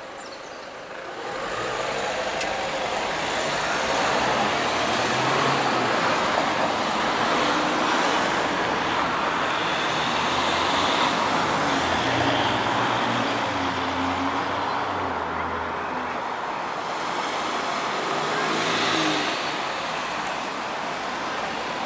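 Road traffic driving past a pedestrian crossing, with cars and engine hum. It grows louder about a second in, then holds steady.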